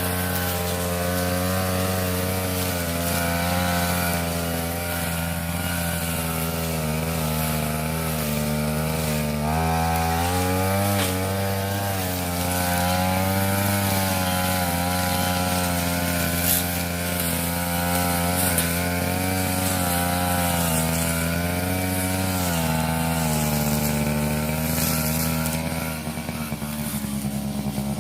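Petrol brush cutter engine running at working speed while cutting grass, its pitch wavering up and down as the load changes; about two seconds before the end it eases off to a lower speed.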